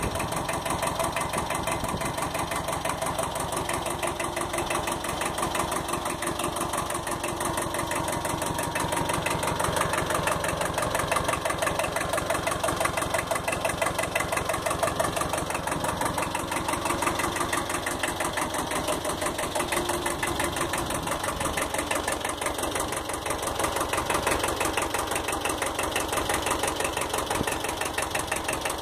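Kubota B7000 compact tractor's diesel engine idling steadily.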